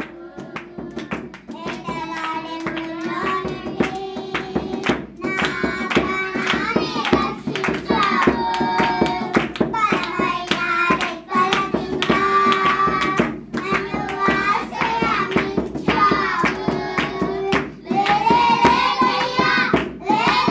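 A group of children singing a praise song together, clapping their hands to a steady beat.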